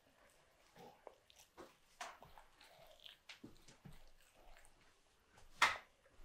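A toddler biting and chewing a crumpet, with faint wet mouth noises and small clicks, and one sharp click near the end.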